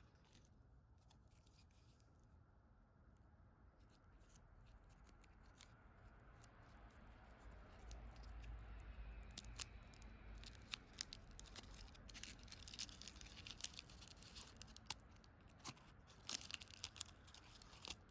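Ricola cough drop packaging being handled and opened: faint scattered crinkles and ticks that grow busier toward the end, with a run of dense crinkling in the last few seconds.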